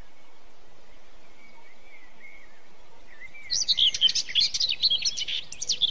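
Electronic toy dinosaur sound effect: a faint steady high whine, then a little past halfway a rapid run of shrill, gliding chirps and squeals lasting about two seconds.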